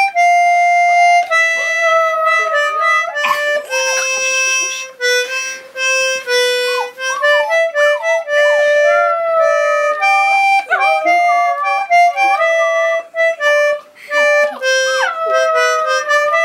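A concertina plays held reed notes while a 6.5-week-old golden retriever puppy howls along. The puppy's thin howls slide up and down in pitch over the notes.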